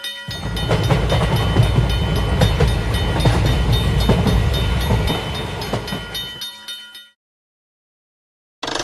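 Animated-train sound effect: a train rumbling past a railroad crossing, with the crossing's warning bell ringing in a steady repeating pattern over it. It cuts off suddenly about seven seconds in.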